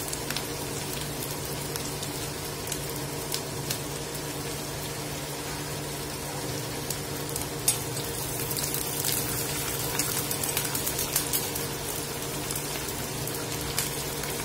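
Sliced shallots, green chillies, dried red chillies and curry leaves sizzling steadily as they fry in hot oil in a heavy black pot. A steel spoon stirs them, with scattered sharp clicks, most of them in the second half.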